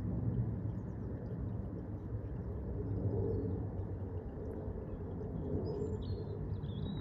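Steady low rumble of an Airbus A320-232 airliner's IAE V2500 turbofan engines overhead. A bird chirps a few times near the end.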